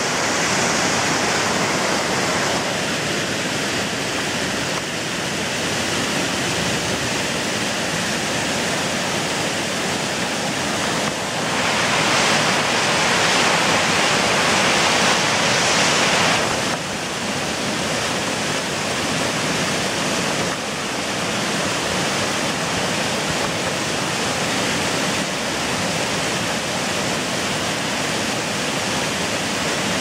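Small waterfall's water rushing steadily, a continuous hiss of falling water that grows louder for about five seconds in the middle, then settles back.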